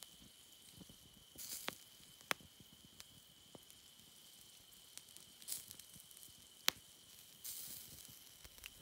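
Steak and peppers sizzling over a bed of campfire coals, faintly, with a few hissy flare-ups and about three sharp pops from the embers.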